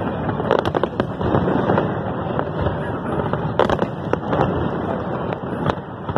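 Fireworks display: many aerial shells bursting together in a steady, dense barrage, with sharper bangs standing out every second or so.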